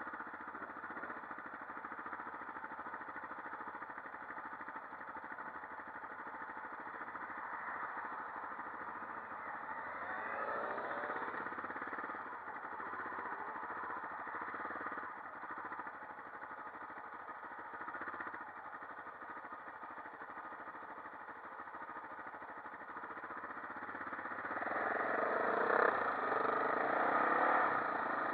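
Quad bike engine running, with a rising rev about ten seconds in and getting louder near the end as the quad speeds up.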